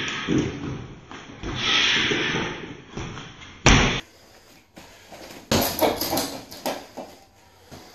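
Punches and kicks landing on a tall hanging heavy bag: one hard strike about three and a half seconds in, then a quick flurry of about six strikes a couple of seconds later. Two drawn-out hissing sounds come in the first half.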